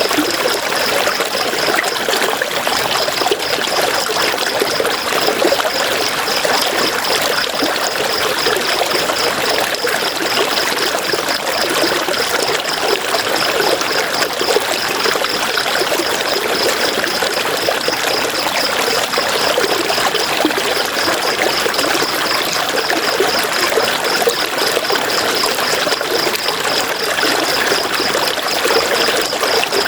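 River water running and splashing in a steady, even rush. A fast, even, high-pitched pulsing sound runs over it, stopping briefly about two seconds in and again around twenty seconds in.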